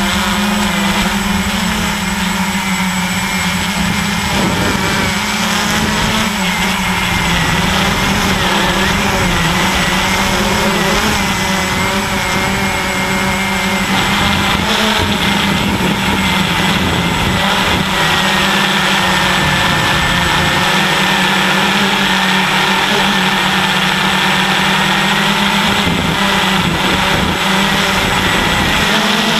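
Walkera QR X350 quadcopter's brushless motors and propellers running in flight: a steady hum with a high whine that drifts slightly in pitch as the throttle changes. It is heard close up from a GoPro mounted on the airframe.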